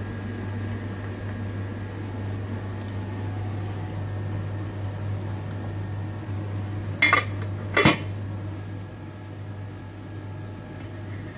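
A stainless steel stockpot and its lid clank twice, two sharp metal knocks a little under a second apart, over a steady low hum.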